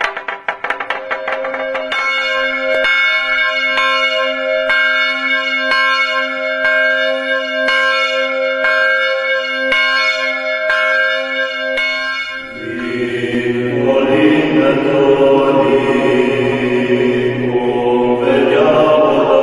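Church bell in an open metal frame tolling about once a second, each stroke ringing on into the next, after the last strokes of a wooden toacă semantron die away in the first second or so. About 13 seconds in, the bell stops and men's voices start singing a Romanian colind (Christmas carol) in a chant-like style.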